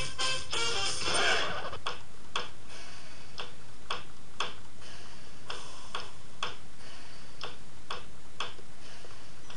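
Music ends with a swell about a second in, followed by a steady ticking of about two ticks a second.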